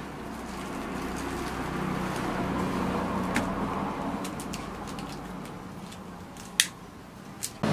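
Low steady hum under a swell of distant noise that rises toward the middle and fades, broken by a few sharp clicks, the loudest about six and a half seconds in.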